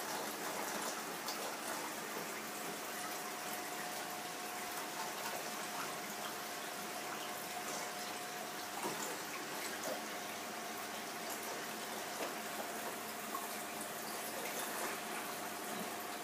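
Steady rush of aquarium water circulating, with a faint steady tone joining about two and a half seconds in.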